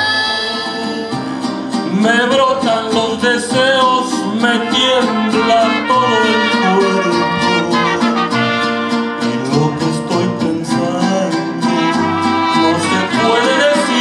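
Mariachi band playing, violins and guitars to the fore.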